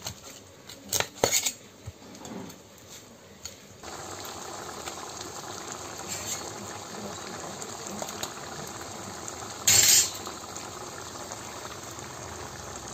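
A steel spatula clinking and scraping in a steel bowl as spice-coated fish heads are turned. After about four seconds this gives way to a pot of lentil dal bubbling at a steady boil, with one short, loud burst of noise about ten seconds in.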